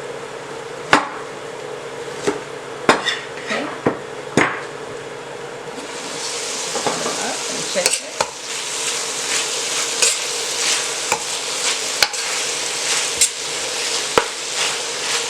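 Chicken in red curry sauce frying in a pan, with a spoon knocking and clinking against the pan. About six seconds in, the sizzle turns louder and brighter and the stirring goes on, with frequent taps and scrapes of the spoon on the pan.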